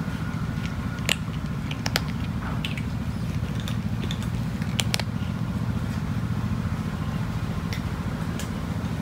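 Cat chewing dry kibble, with sharp, irregular crunches over a steady low hum.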